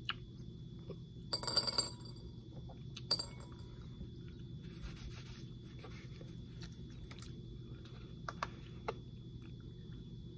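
Small objects being handled: a brief cluster of clinks and rattles about a second and a half in, a single clink about three seconds in, and a few small clicks near the end, over a steady low hum.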